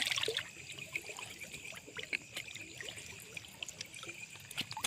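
Shallow water splashing and trickling in many small, irregular splashes, as of someone wading or working in it.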